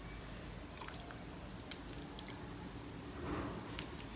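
Quiet kitchen with faint small clicks; about three seconds in, a soft splash of broth being ladled over stuffed cabbage rolls in a metal pan.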